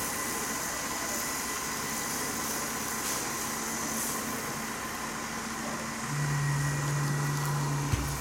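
Steady mechanical hum in the background. A louder low motor drone joins about six seconds in and cuts off suddenly near the end.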